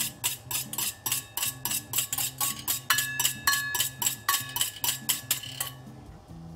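Wire whisk clinking and scraping against a stainless steel mixing bowl in rapid taps, several a second, with the bowl ringing; the tapping stops about a second before the end.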